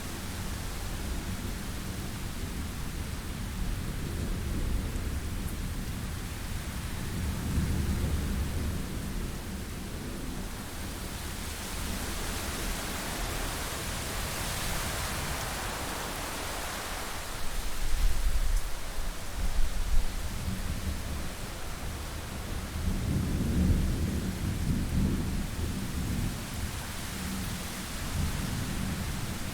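Thunderstorm: deep, rolling rumbles of thunder over steady rain. The loudest rumble comes about two-thirds of the way through, with two sharp peaks, after the rain hiss swells for a few seconds.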